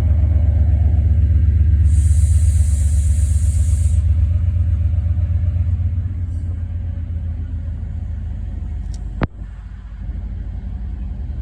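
Class 68 diesel locomotive's engine running with a deep, even rumble that fades from about halfway through as the locomotive moves off. A burst of hiss about two seconds in, and a sharp click about nine seconds in.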